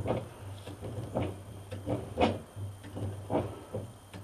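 New bench vise being cranked by its sliding handle bar, giving a series of short metallic knocks, about two a second, as the screw and jaw work, freshly sprayed with WD-40.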